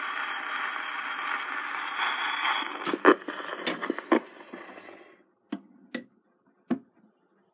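Surface hiss of a shellac 78 rpm Victor record under the steel needle of a Victor VV-XVII Victrola, with the music over. About three seconds in comes a cluster of sharp clicks and scrapes, the hiss dies away about two seconds later, and three separate sharp clicks follow.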